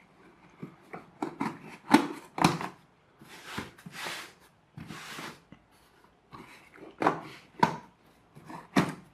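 A cardboard parcel being handled and opened: scattered knocks and clicks with several short rustling bursts of packaging.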